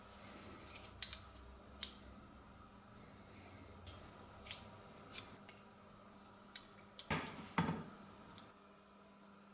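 Scattered light clicks and metallic ticks of a bicycle hub and a steel vernier caliper being handled, with two short rougher scrapes about seven seconds in.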